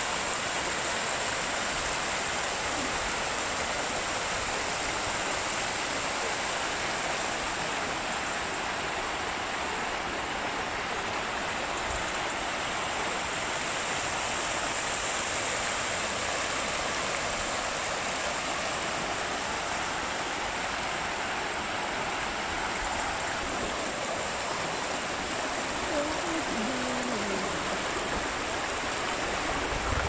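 Shallow stream rushing in small white cascades over stepped rock ledges: a steady, unbroken rush of water.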